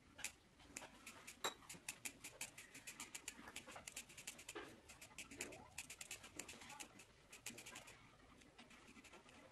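Small scissors snipping into dense foam mattress sponge: a quick run of faint snips, several a second, thinning out near the end.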